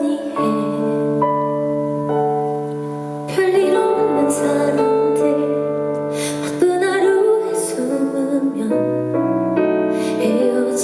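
Live ballad: a woman singing softly over piano accompaniment, with held notes and slow chord changes.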